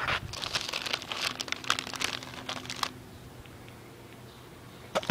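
Crinkling and crackling for about three seconds, then quieter, with one sharp click near the end.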